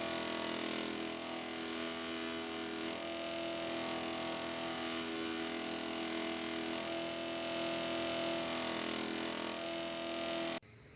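A small electric power tool running steadily: a motor hum with a high hiss that grows and drops a few times as it works, cutting off suddenly near the end.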